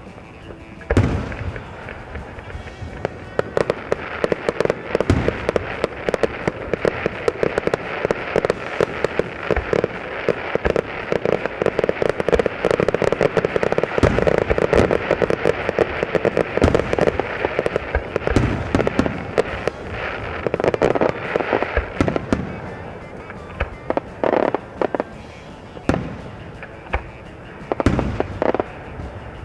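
Aerial fireworks going off in a rapid, dense barrage of bangs and crackles. The barrage thins out about three quarters of the way through, leaving a few separate booms near the end.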